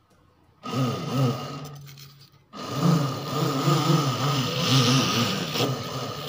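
Small electric motor spinning a homemade core cutter made from an 8 mm selfie-stick tube. It starts about half a second in, stops briefly near two and a half seconds, then runs again with a wavering hum as a styrofoam block is pushed onto the spinning tube, with a hiss of the tube cutting the foam around five seconds in.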